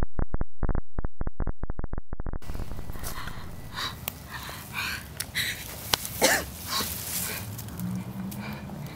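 A muffled, low, pulsing sound fades out over the first few seconds. Then an injured person breathes raggedly in short gasps and whimpers.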